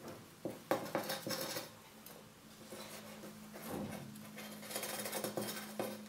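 Small hand trowel scooping and tipping potting soil into a planter box: scraping, soil rustling and light clinks in two spells, the first about half a second in, the second from about three and a half seconds in, over a faint steady hum.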